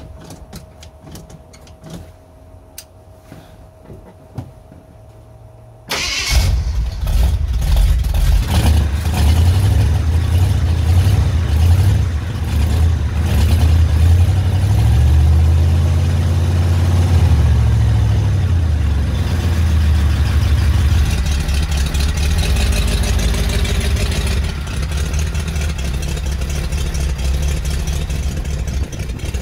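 AMC 304 V8 of a 1972 Jeep Commando on a cold start: after a few quiet seconds with light clicks, it fires suddenly about six seconds in and keeps running. Its engine speed rises and falls once midway, then it settles into a steady idle.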